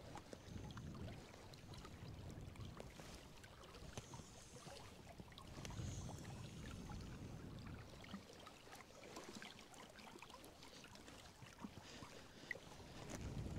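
Small waves faintly lapping and trickling against shoreline rocks, with wind gusting on the microphone several times as low rumbles.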